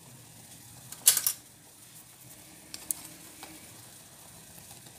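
A few light clicks and taps of a spoon and spice container as cardamom powder is added to a pan of milk, the loudest quick cluster about a second in and single ticks a couple of seconds later, over a faint steady hiss from the gas burner under the pan.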